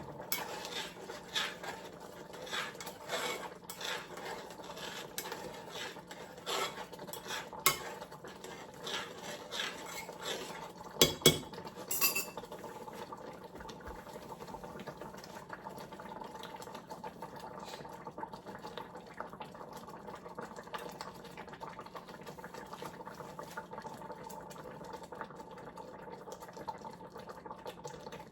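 A spoon stirring in a pot of oatmeal, clinking and scraping against the pot for about the first twelve seconds, over a steady low hum that carries on alone afterwards.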